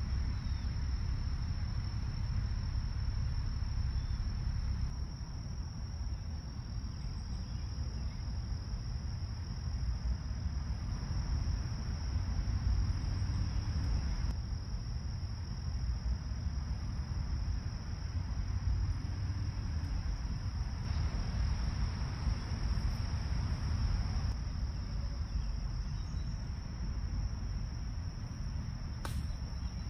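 Insects trilling in a steady, high, unbroken chorus over a steady low rumble, with one sharp click near the end.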